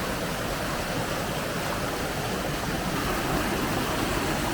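Steady rush of falling and flowing water from a waterfall and its stream.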